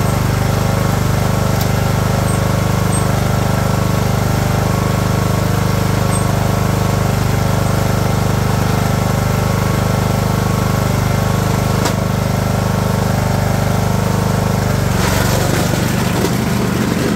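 A 2006 Craftsman YS4500 lawn tractor's engine running at a steady speed while plowing snow. Near the end the steady tone breaks up into a rougher, noisier sound as the tractor and its front plow blade come up close.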